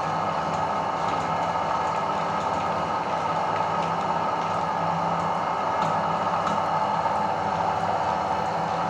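Meat grinder running with a steady mechanical hum and a few faint clicks.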